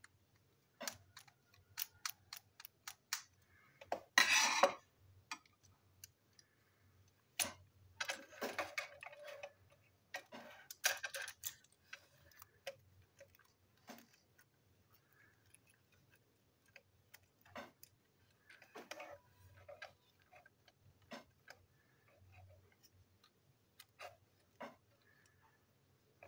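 Small plastic clicks and taps from a battery-powered toy train being unscrewed and pulled apart by hand, with a few brief scraping rustles of parts handled about 4, 8 and 11 seconds in.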